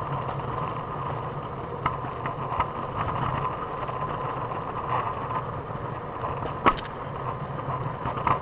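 Trikke three-wheeled scooter rolling on pavement: a steady hum of the wheels with scattered clicks and knocks, the sharpest about two thirds of the way through. Muffled, heard from inside a pocket.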